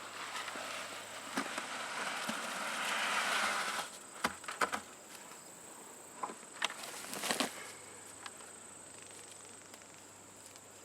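Leftover wet concrete being dumped into a block cell: a rushing, sliding pour that builds for about four seconds and stops abruptly. It is followed by a handful of sharp knocks and scrapes, the container or tool being knocked empty.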